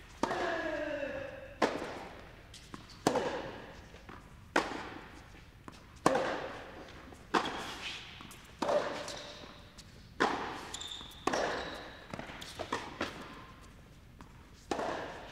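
Tennis rally: racket strikes and ball bounces come about every second and a half, each hit echoing in the large indoor hall.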